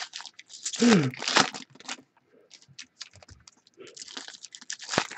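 A foil trading-card pack being torn open and crinkled in the hands, in scratchy bursts of crackling.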